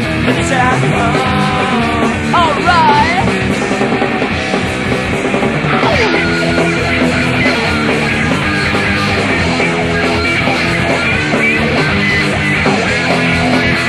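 Punk rock band playing a song from a 1994 cassette demo recording. The playing is loud and steady, with a few notes wavering and bending in pitch about two to three seconds in.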